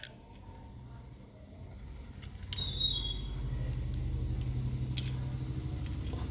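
A motor vehicle's engine running close by, a low rumble that swells about two seconds in and then holds steady. A few light clicks sound over it.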